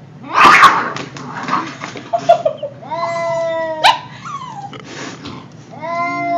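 A pet animal's drawn-out whining calls, three in a row, each held on one pitch or gliding downward, one ending in a sharp upward squeal. About half a second in there is a short, loud, noisy burst.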